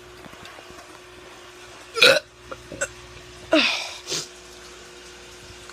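A teen's forced burps: two short, sharp ones about two and three and a half seconds in, and a fainter one just after, with small throat clicks between them.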